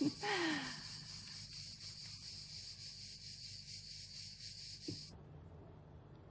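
Crickets chirping in a steady high trill that cuts off suddenly about five seconds in, leaving a faint low hum.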